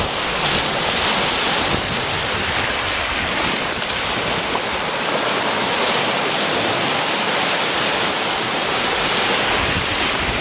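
Sea waves washing onto a beach, a steady rushing surf, with wind buffeting the microphone in low gusts that ease off in the middle and pick up again near the end.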